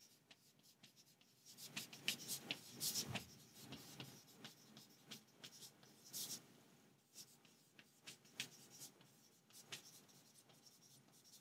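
Chalk writing on a chalkboard: faint, irregular scratching strokes of handwriting, busiest a couple of seconds in, then thinning out.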